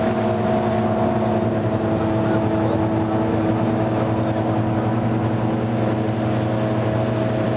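Motorboat engine running steadily at speed, one constant note with no revving, under the rush of water and wind.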